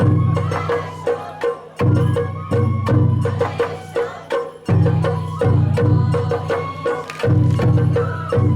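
Sawara-bayashi festival music: a shinobue bamboo flute playing a melody over repeated rolls of taiko drums, with sharp knocking accents.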